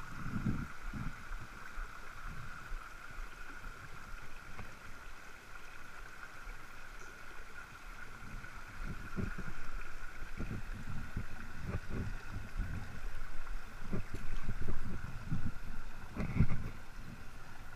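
Small mountain stream rushing steadily over rocks in shallow riffles, with irregular low rumbles and bumps on the microphone that grow heavier in the second half.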